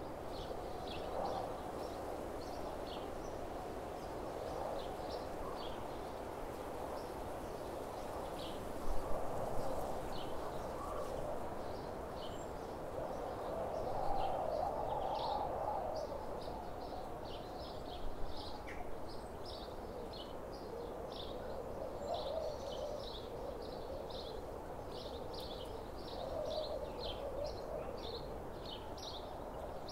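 Small birds chirping with many short, repeated high notes that come thicker in the second half, over a steady outdoor hiss. There are a few soft bumps along the way.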